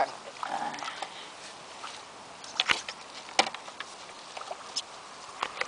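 Hooked perch splashing and thrashing at the water surface while being played on a pole, heard as scattered small splashes and sharp clicks, the strongest about two and a half and three and a half seconds in.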